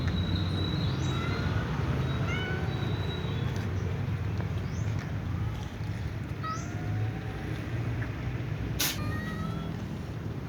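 Several domestic cats meowing in short, repeated mews that rise or fall in pitch, over a steady low hum. A short sharp noise cuts in about nine seconds in.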